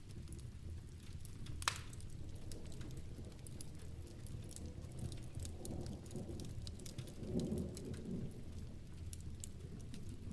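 Steady rain with a wood fire crackling: scattered sharp pops, one loud crack just under two seconds in. A low rumble swells and fades in the middle.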